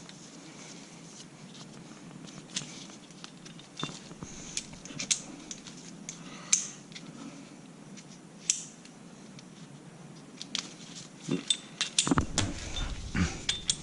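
Scattered metallic clicks and clinks of hand tools and brake parts being handled while a caliper piston tool is set up. A quicker run of louder knocks comes near the end.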